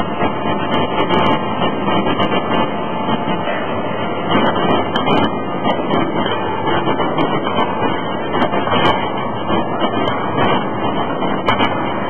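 Loud, steady machinery din of a forging shop working around a hydraulic forging hammer, with faint irregular knocks scattered through it.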